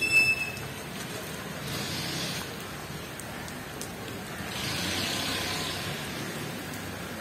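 Steady outdoor hiss of light rain mixed with distant road traffic, swelling twice as if vehicles were passing on a wet road. A short, sharp high-pitched tone sounds right at the start.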